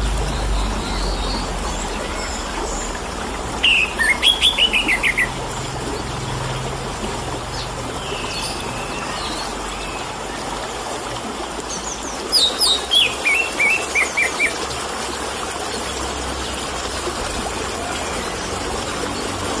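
Orange-headed thrush singing two quick runs of notes that fall in pitch, about four seconds in and again about twelve seconds in, with fainter high chirps between, over a steady trickle of water.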